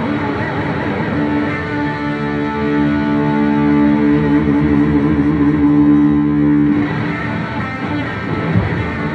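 Live rock band with an amplified electric guitar: a sustained chord builds and rings for several seconds, then cuts off abruptly about two-thirds of the way in, and the band plays on.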